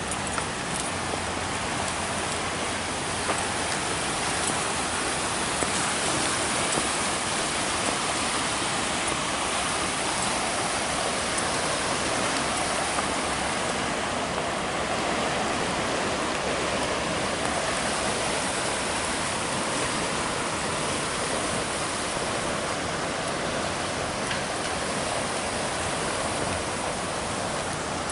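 Floodwater rushing down a swollen creek and spilling over a low concrete crossing: a steady, unbroken rush of water.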